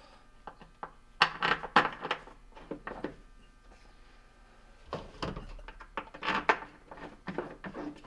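Hard plastic parts in the bottom of a Hotpoint dishwasher tub knocking and clicking as the sump cover and spray arm are refitted. A quick run of clicks and knocks comes about a second in, and another from about five seconds in.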